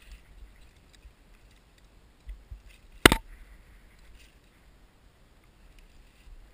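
Climbing rope and gear being handled: faint scattered ticks and handling noise, with one sharp, loud click about three seconds in.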